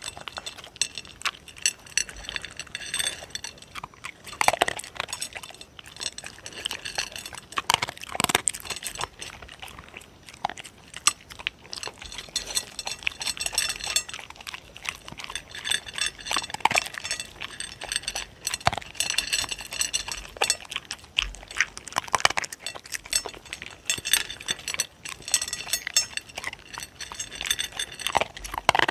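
Dogs eating dry kibble from a plate close to the microphone: a steady run of crunching and chewing, with pellets clicking against the plate.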